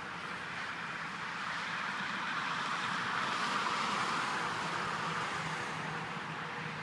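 Motorcycle approaching slowly, its engine a low steady note that grows toward the end. Over it, a rushing swell of vehicle noise rises to a peak about halfway through and then eases.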